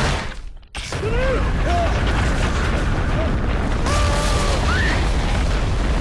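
Film soundtrack of an avalanche: a sudden loud hit, then a continuous deep rumble of snow crashing down, with people shouting and screaming over it a few times.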